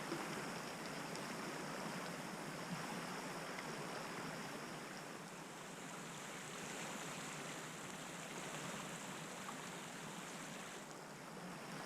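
Steady rushing of a nearby stream or creek, an even hiss of flowing water.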